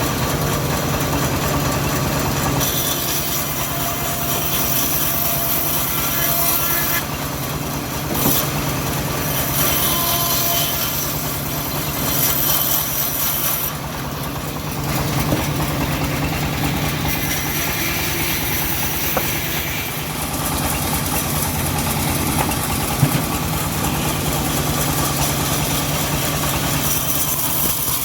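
Homemade engine-driven bandsaw running steadily with an even engine hum, while the blade saws through a teak log with a hiss that swells and eases every few seconds.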